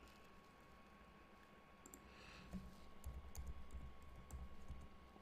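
Faint clicks of a computer keyboard and mouse: a handful of short taps from about two seconds in, over quiet room tone.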